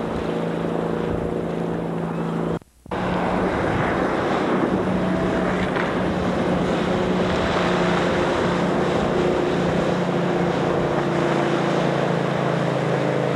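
Motorboat engine running steadily at speed, under a rush of water and wind on the microphone. The sound cuts out for a moment about three seconds in.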